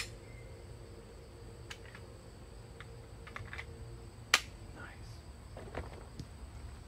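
Mechanical clicks from handling a Smith & Wesson SD40 VE pistol: a sharp click at the start, several small clicks, and one louder sharp snap a little after four seconds in.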